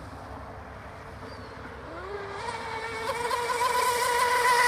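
Electric motor of a radio-controlled speedboat running on a 5S battery, a high whine that rises in pitch about two seconds in, then holds steady and grows louder as the boat comes past, cutting off suddenly at the end.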